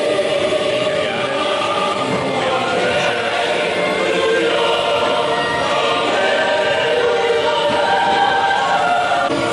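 Choir singing: several voices holding long sung notes together without a break, at a steady level.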